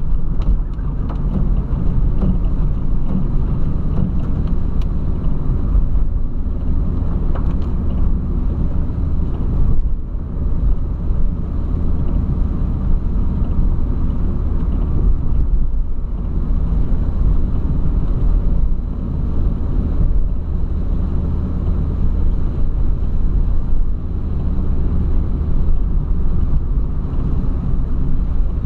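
Volkswagen Polo sedan driving on a wet road in rain, heard from inside the cabin: a steady low engine and road rumble with tyre noise.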